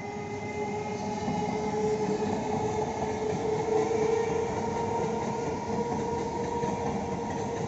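Eastern Railway EMU local train running past: a steady rumble of wheels on rail with a steady whining tone over it, growing louder over the first two seconds and then holding.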